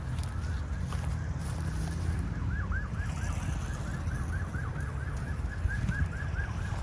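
Wind rumbling on the microphone, with a fast run of short rising-and-falling chirps, about three or four a second, starting a couple of seconds in.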